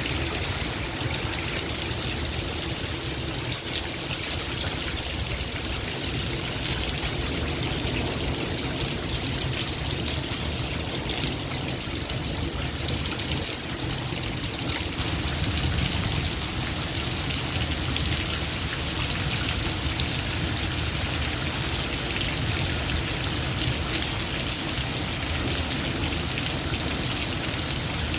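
Heavy rain falling steadily, with running, trickling water. The rain grows a little louder and brighter about halfway through.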